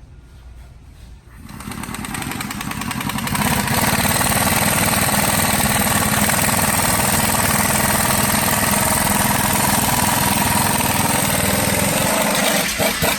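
A loud motor starts up about a second in, builds to full speed over roughly two seconds, runs steadily, then cuts off abruptly near the end.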